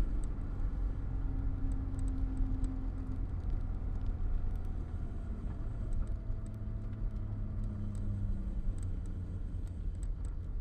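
A car engine running at low, slowly drifting revs over a steady low rumble, with light scattered ticks.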